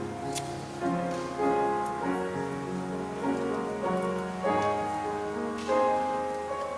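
Piano playing slow sustained chords that change every second or so.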